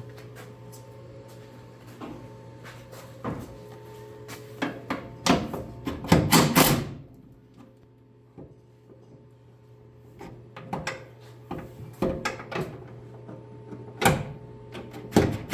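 Clunks and scraping from a 1968 Mustang's hood on its factory hinges being worked up and down, in three bursts, over a steady hum. The hood is rubbing against the fender, which is later put down to bad hood springs, a common problem on these cars.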